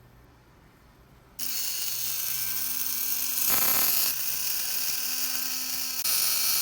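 Philips Sonicare DiamondClean electric toothbrush running with its casing opened. It starts as a faint hum and about a second and a half in becomes a loud, steady buzz, which shifts briefly near the middle. The buzzing is the rattle from a loosened screw inside, which the owner fixes by tightening it.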